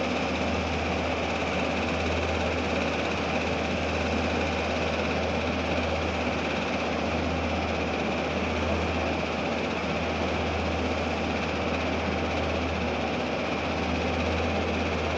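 Steady drone of heavy machinery running, with a deep low hum under an even mechanical noise and no clear strokes or changes.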